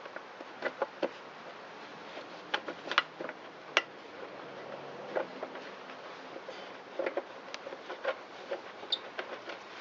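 Irregular light clicks and knocks of a bolt, a plastic spacer and hand tools being handled while a fuel tank is fitted and bolted onto a small engine.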